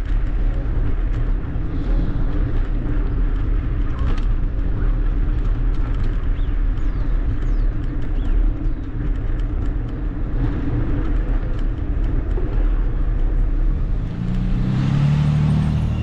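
Steady low rumble of street traffic, with a vehicle passing closer and louder near the end.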